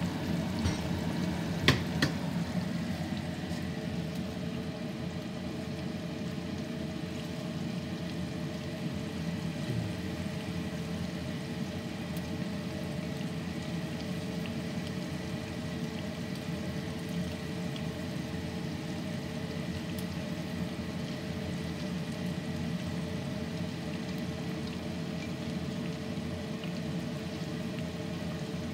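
Cream cheese wontons frying in oil in a skillet: a steady bubbling sizzle. Two sharp clicks come about two seconds in.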